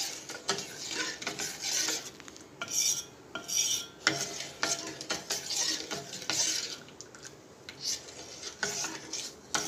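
A steel spoon stirring a thin chocolate syrup mixture of cocoa, sugar, cornflour and milk in a stainless-steel pan, scraping against the metal in repeated uneven strokes with occasional sharp clinks.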